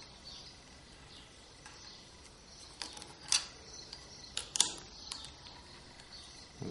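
Small plastic and metal parts clicking as they are fitted by hand into the plastic head of a tape binder: a few sharp ticks, mostly in the second half.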